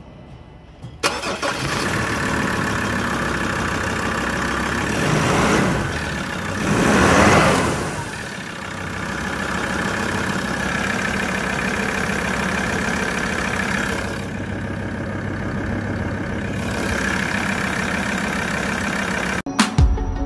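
Mazda BT-50 diesel engine starting about a second in, then idling, with two brief revs a few seconds later before settling back to idle. It gives way to electronic music near the end.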